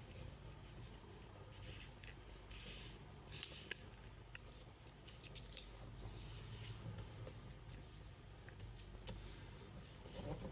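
A sheet of origami paper being handled and folded, faint rustling with scattered crisp crinkles and clicks as creases are pressed.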